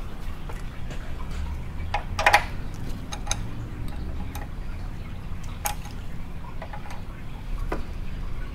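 Scattered small clicks and knocks of hands and a wrench working a Toyota AE86's clutch slave cylinder piston and bleeder screw, the sharpest about two seconds in, with spurts of trapped air and brake fluid being pushed out through the bleeder into the catch hose.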